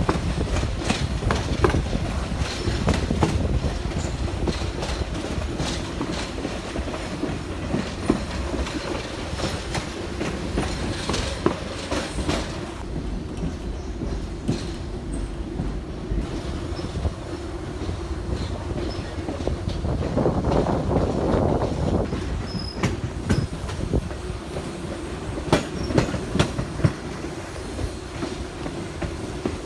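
Railroad cars rolling on jointed track: a steady rumble with a constant hum, with wheels clicking over the rail joints again and again. Around two-thirds of the way in, it briefly grows louder.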